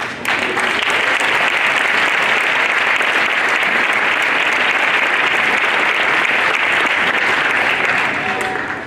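Audience applause: many people clapping together, starting suddenly, holding steady for about eight seconds and dying away near the end.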